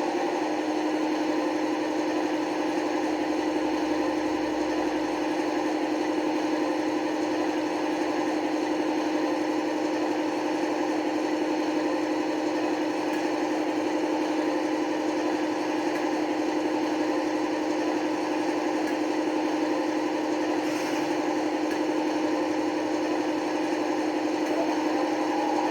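Sound decoder in a model Class 55 Deltic locomotive playing a steady Napier Deltic engine idle through its small onboard speaker, an even, unchanging hum.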